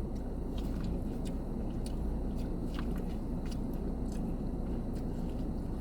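A person chewing and biting food close to the microphone, with scattered soft wet clicks and smacks over a steady low hum.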